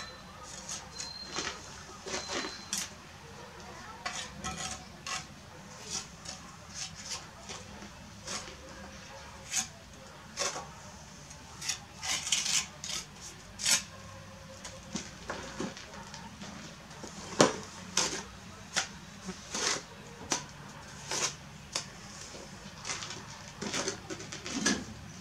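Steel bricklaying trowel clinking and scraping against bricks, mortar and the mortar bucket in a run of irregular sharp taps, with a few longer scrapes about halfway through.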